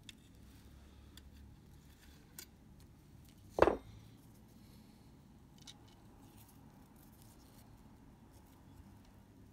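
Faint clicks of small tools and camera parts being handled on a workbench, with one short, much louder sharp knock about three and a half seconds in.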